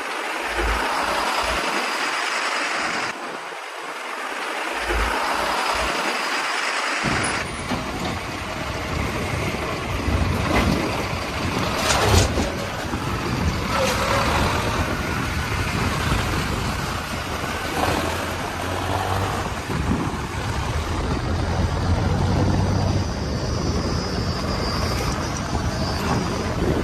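Diesel engine of a JCB 3DX backhoe loader running while it works, with a low rumble that comes in about seven seconds in and a few sharp knocks from the machine.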